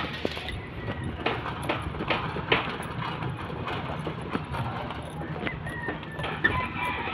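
Footsteps on a bamboo-slat footbridge: a run of hollow knocks, about two steps a second, over a steady low rumble.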